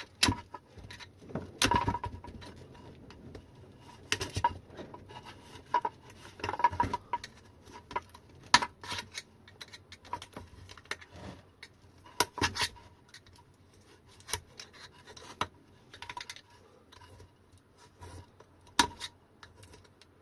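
Irregular clicks, taps and short scrapes of a hand pick and other small tools on a battery case, working the cell pack loose, with the sharpest knocks about eight and a half and nineteen seconds in.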